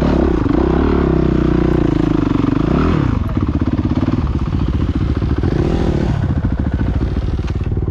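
Dirt bike engine revving up and down under load on a steep climb, then dropping to a steady low idle about three seconds in as the bike comes to a stop.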